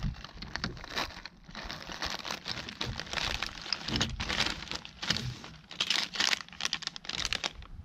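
Plastic mailer bag crinkling and rustling as it is opened by hand and the plastic-bagged fishing corks inside are pulled out and handled.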